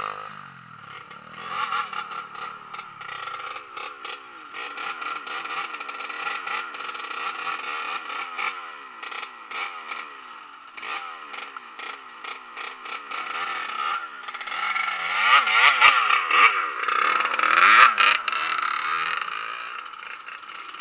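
Dirt bike engine revving up and down over and over while it pushes through tall grass, with rattling clatter. It grows louder in the last few seconds.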